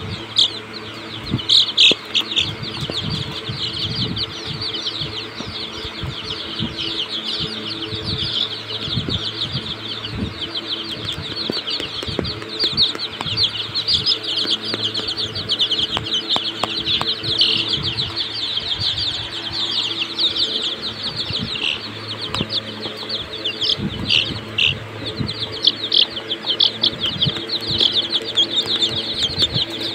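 A pen of young Sonali chicks peeping without pause, many short high peeps overlapping, with scattered low thumps and a faint steady hum underneath.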